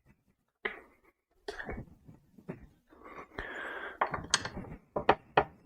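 A string of clinks and knocks with short bursts of scraping and rustling: motorcycle parts and tools being handled and set down.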